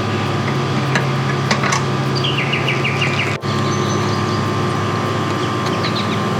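Steady mechanical hum from a running motor, with a songbird's quick trill of about seven short notes a little before the middle.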